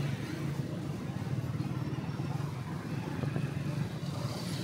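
Small motorcycle engine running steadily under way, its low rapid pulsing mixed with the surrounding street traffic.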